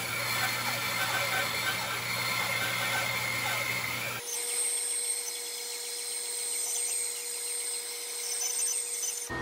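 Bandsaw resawing a thick wooden block lengthwise, the blade running steadily through the wood over the motor's hum. About four seconds in the sound changes abruptly, the low hum dropping away, as a later stretch of the same cut follows.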